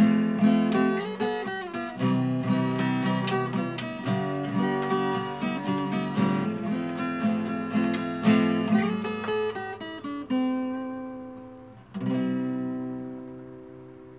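Background music: acoustic guitar picking a quick run of notes. It fades, then a final strummed chord about twelve seconds in rings out and dies away.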